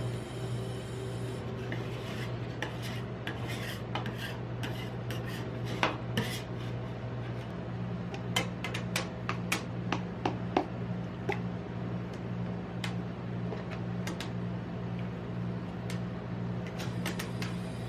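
Metal spatulas tapping and scraping on the frozen steel plate of a rolled ice cream pan. Sharp clicks come in a busy cluster for several seconds, then a few more near the end, over a steady low hum.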